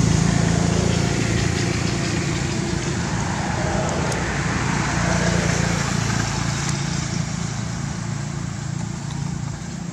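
A steady motor engine hum with a low drone, easing off a couple of seconds in, returning about five seconds in, and slowly fading toward the end.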